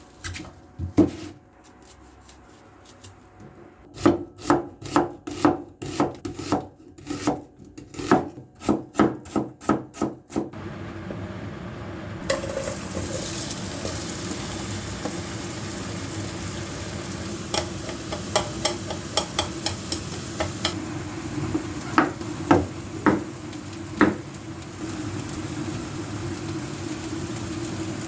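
Kitchen knife chopping on a wooden cutting board in an even rhythm, about two strokes a second, stopping about ten seconds in. A steady hiss then sets in and runs on, with scattered clicks and a few knocks.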